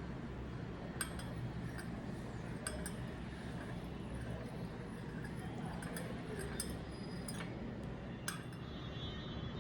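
Glassware and dishes being handled, making several light, ringing clinks spaced unevenly over a steady low hum.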